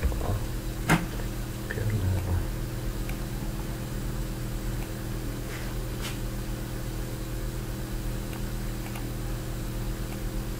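A steady electrical hum runs underneath a few computer mouse clicks; the sharpest click comes about a second in and fainter ones follow around the middle.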